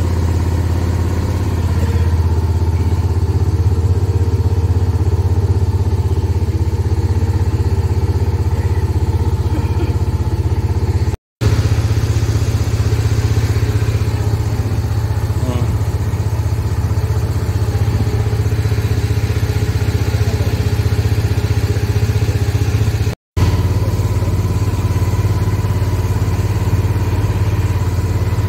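Motorboat engine running steadily, a loud low drone heard from the front of the boat with the engine at the stern. The sound cuts out briefly twice.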